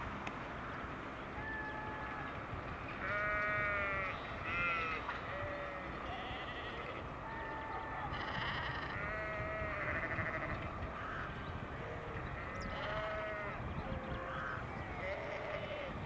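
Sheep bleating repeatedly, a dozen or so wavering calls, some overlapping, over a steady low background noise.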